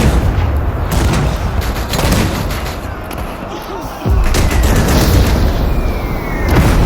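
World War 1 battlefield ambience: a constant heavy rumble of distant artillery with scattered rifle shots and bursts of gunfire. The rumble eases in the middle and comes back suddenly about four seconds in.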